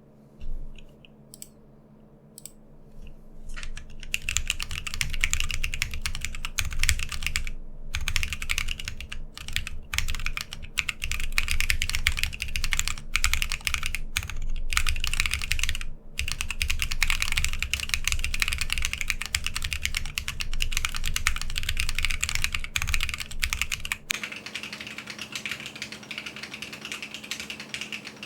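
Typing on a TGR x Linworks Dolice 60% Alice-layout mechanical keyboard with a polycarbonate plate, stock KLC Rubrehose Brown tactile switches and PBT keycaps, giving a light, clacky sound. A few separate keystrokes come first, then fast continuous typing for the rest. Near the end the sound turns thinner, with less bass.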